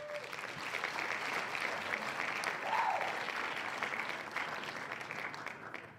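Audience applause played as a sound effect, a dense steady clapping that fades out near the end.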